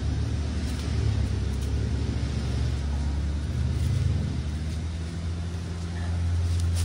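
Low, steady rumble of nearby motor-vehicle traffic, with an engine hum that grows a little louder near the end.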